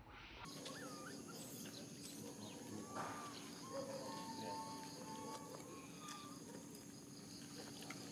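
Faint outdoor ambience: short squeaky chirps and whistled calls come and go over a steady high-pitched hum.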